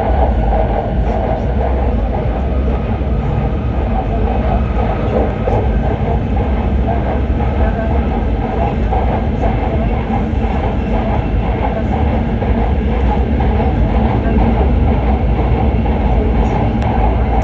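Steady running noise of an E7/W7-series Hokuriku Shinkansen train, heard inside the passenger cabin: a heavy low rumble with even rolling and air noise.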